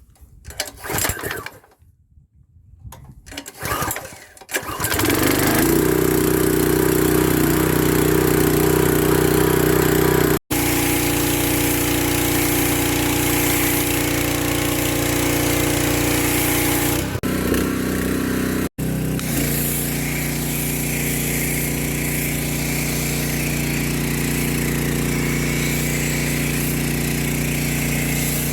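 Gas pressure washer's small engine running steadily under load about five seconds in, with the hiss of water and soap spraying from a snow foam cannon.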